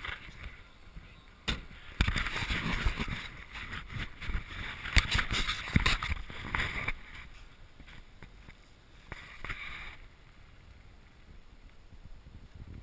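Suzuki Jimny 4x4 lurching over a rough, muddy off-road track: a loud stretch of knocks and jolts with rattling and rushing noise in the first half, a shorter burst later, then quieter running.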